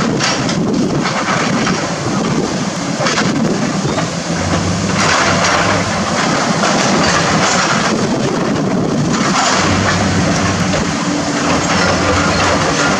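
Hydraulic demolition excavators at work: diesel engines running under a continuous clatter and crash of rubble and metal debris, with louder crashing stretches as a grapple releases demolition debris into a steel dumpster.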